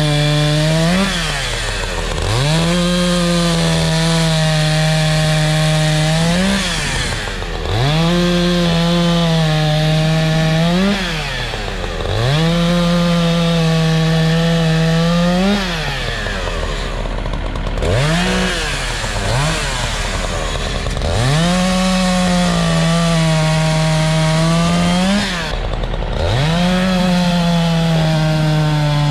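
Echo CS-590 Timberwolf two-stroke chainsaw bucking logs: about six cuts, the engine held at a steady high pitch under load for a few seconds each. At the end of each cut it revs up as the chain breaks through, then drops briefly to idle before the next one, with two quick throttle blips midway.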